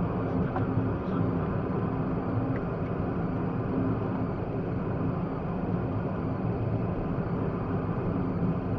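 Steady road and engine noise heard inside a moving car: a continuous low hum with tyre noise over it.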